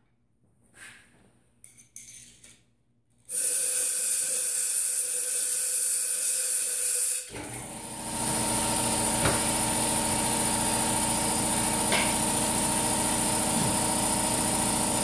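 Compressed air blowing from an air blow gun, a loud steady hiss for about four seconds that stops sharply, clearing aluminium shavings out of a shock reservoir. About a second later a steady machine hum with hiss starts and runs on.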